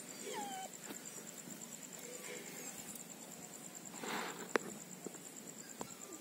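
Two puppies playing: one gives a short whine that falls in pitch about half a second in, then there is a brief scuffle and a single sharp knock a little past four seconds, with a lighter knock near the end.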